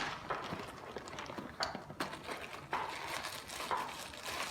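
Packaging of a tripod stand handled while it is unpacked: a few scattered sharp clicks and knocks over light rustling.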